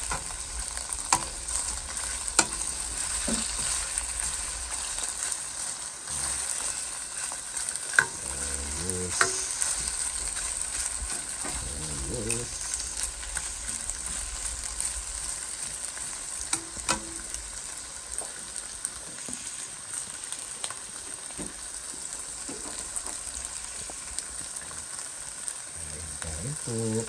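Fried rice with pork tocino sizzling in a frying pan as it is stirred, a steady hiss with now and then a sharp clink of the spatula against the pan.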